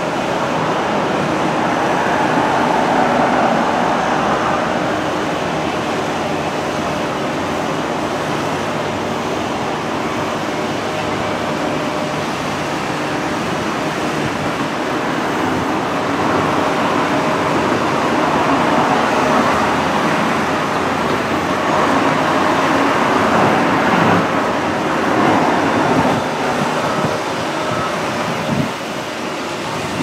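Diesel engines of John Deere tracked excavators running steadily as they dig, heard from afar as a continuous mechanical hum that rises and falls in level.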